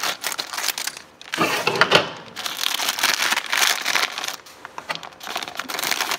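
A plastic parts bag being torn open and crinkled by hand, with irregular rustling and crackling as the paper instructions inside are pulled out.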